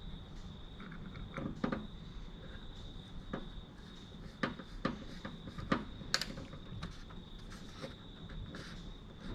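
Scattered sharp clicks and light knocks of a plastic door handle surround and the door handle being worked into place on a car door. Under them runs a steady, high insect trill.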